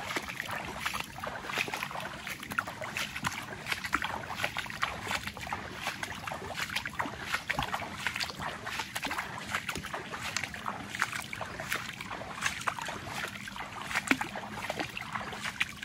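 Shallow tidal water sloshing and lapping, a steady run of small splashes and crackles.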